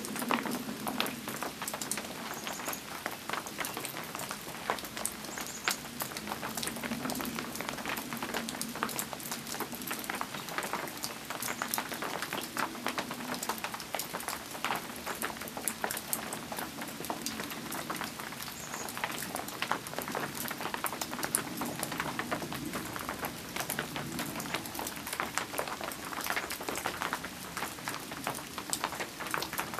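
Rain falling steadily, a dense patter of many small drops hitting close by.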